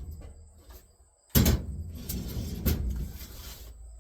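A sharp knock about a second and a half in, then a couple of seconds of scraping and rustling with two more knocks: hands handling wood, carpet and tools on a workbench.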